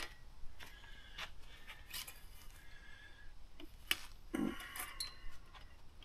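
Metal frame of a collapsible pop-up canopy being pulled open by hand: scattered clicks and rattles of the scissor joints, with a louder knock about four and a half seconds in.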